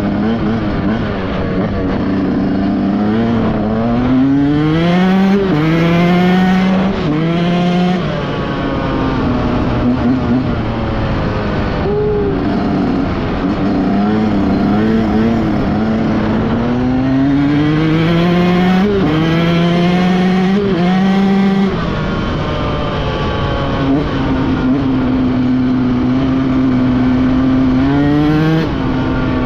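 Dirt bike engine heard from on the bike, climbing in pitch and dropping sharply at each upshift in two runs of quick gear changes, then holding a steady pitch at cruising speed in the last few seconds.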